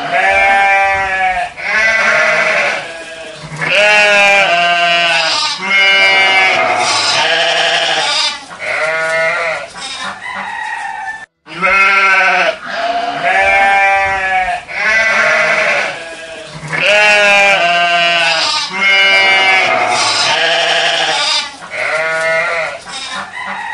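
Several male voices bleating in chorus like sheep, each call a long quavering note, over and over. The same passage plays twice, with a brief break about eleven seconds in.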